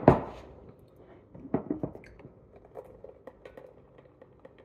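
A sharp double knock of things set down or picked up, then a run of small soft clicks and ticks as mini marshmallows are tipped from a glass jar into a ceramic mug.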